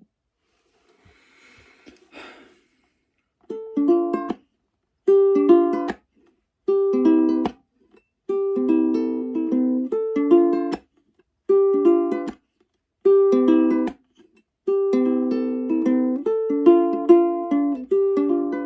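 A plucked string instrument playing a slow, gentle melody in short phrases broken by brief silences, starting about three and a half seconds in, with a faint rustle before it.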